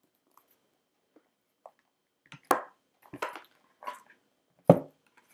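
Cardboard oracle-card box and its cards being handled and opened: a few faint taps, then four sharper knocks and clicks over the second half, the last the loudest thump.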